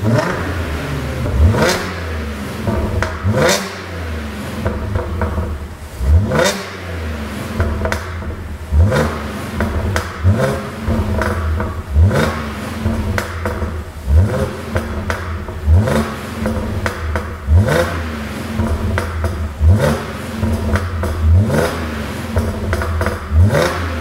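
2012 Audi A7 3.0 TFSI's supercharged V6 blipped from idle about every two seconds, each short rev followed by pops and crackles from the exhaust as the throttle closes. The popping comes from an ECU pop-and-crackle tune.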